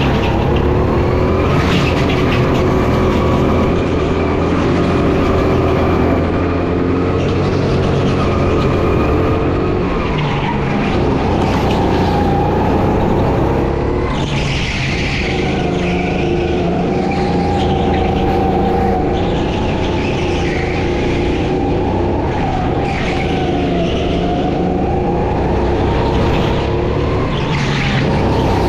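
Race kart engine running hard at racing pace, its pitch dropping and climbing again as it slows for corners and accelerates out. Short tyre squeals come through several of the corners.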